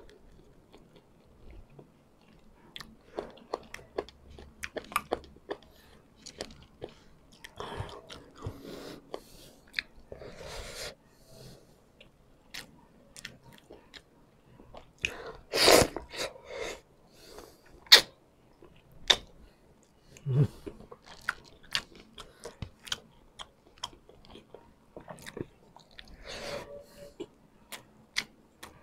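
Close-up mouth sounds of a man eating adobo pork and chicken by hand: wet chewing and smacking with crunchy bites and irregular clicks, and one louder burst about halfway through.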